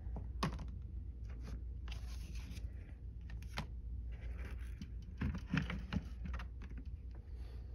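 Handling of a plastic Glock factory pistol case and its paper insert: paper rustling and sliding, with scattered light clicks and knocks of plastic as the pistol and magazine in the tray are touched, over a low steady hum.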